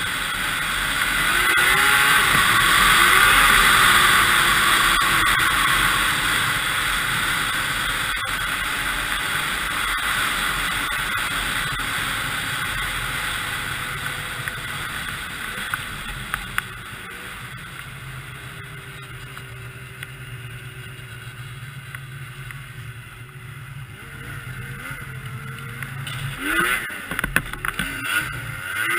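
2002 Yamaha SX Viper 700 snowmobile's two-stroke triple engine running along a snow trail at speed, under a loud rushing noise. Past the middle it eases off to a lower, steadier note, then revs up and down a few times near the end.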